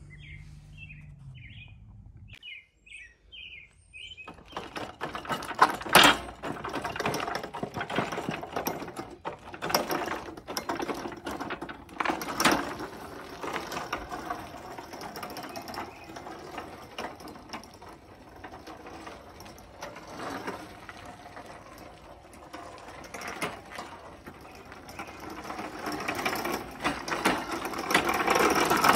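Remote-controlled electric mower chassis driven by wheelchair motors through roller chains: a dense mechanical chain clatter and motor whir with occasional sharp knocks. It starts about four seconds in and grows louder near the end. Birds chirp before the drive starts.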